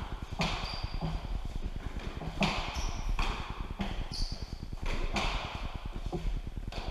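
A fives rally: the ball is smacked by gloved hands and hits the court walls in sharp, echoing strokes, roughly one every second. Trainers squeak briefly on the floor a couple of times.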